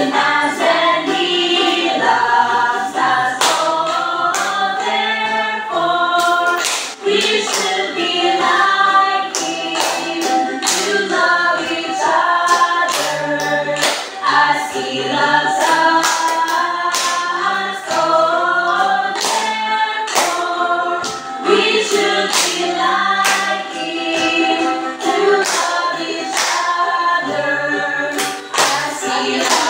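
A small group of young voices singing a hymn together without instruments, with hand claps keeping a steady beat.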